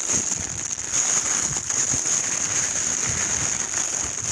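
Campfire crackling with a steady high hiss, with pork fat sizzling on skewers over the flames.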